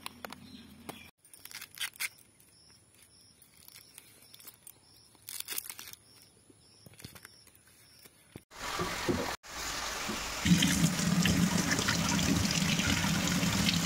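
Tap water running steadily onto a husked corn cob in a stainless steel sink. It starts about two-thirds of the way in and is the loudest sound. Before it there are only faint scattered clicks and rustles.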